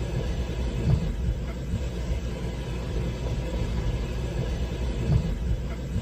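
Steady low rumble, with two soft thumps: one about a second in, one near the end.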